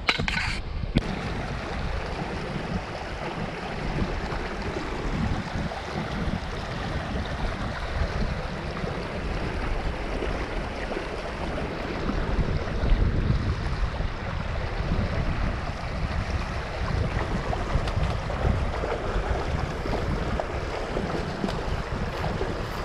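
Wind buffeting the microphone: a steady rushing noise with an uneven, gusty low rumble.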